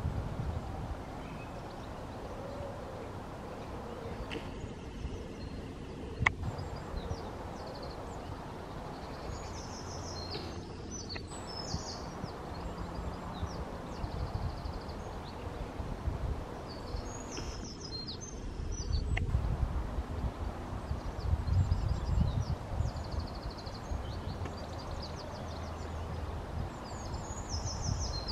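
Outdoor dawn ambience: small birds twitter in short, high, rapid phrases every few seconds over a steady low rumble, which swells for a few seconds in the middle.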